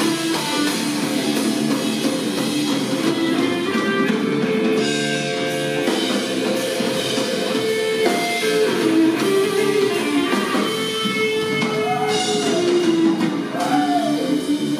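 Live rock trio playing an instrumental passage on electric guitar, electric bass and drum kit, with bent, sliding notes near the end.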